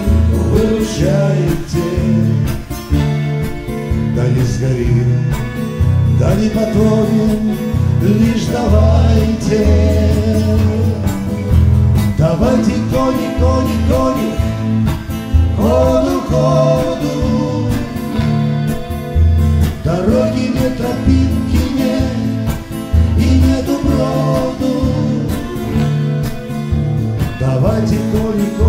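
A song played live on strummed guitars, with men singing a duet over the chords.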